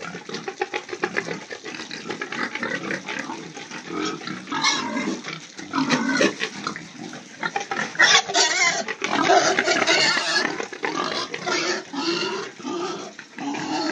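Several pigs grunting and squealing close by, loudest from about eight to ten seconds in.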